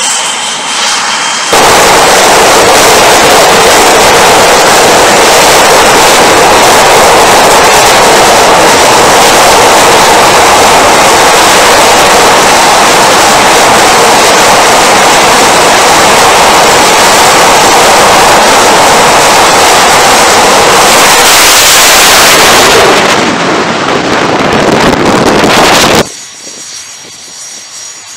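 Twin jet engines of an F/A-18 Super Hornet run at full power on the carrier catapult ahead of a launch. The noise is very loud and steady, cuts in abruptly near the start, shifts around 21–23 s, then drops away sharply near the end.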